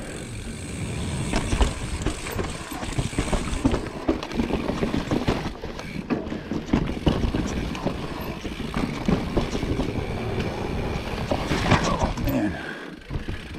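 Mountain bike riding fast down a rooty dirt trail: tyres, chain and frame clattering and knocking constantly over roots and bumps.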